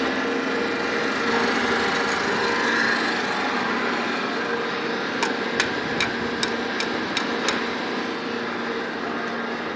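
ZCJK4-15 block-making machine running with a steady motor hum. About halfway through, seven sharp knocks come in quick, even succession, roughly two and a half a second.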